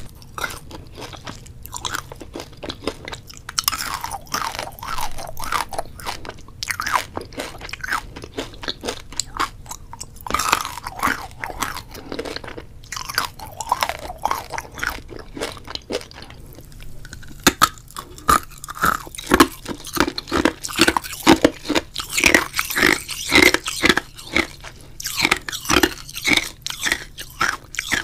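Close-up crisp crunching, a dense irregular run of sharp clicks and crackles that grows busier and louder in the second half.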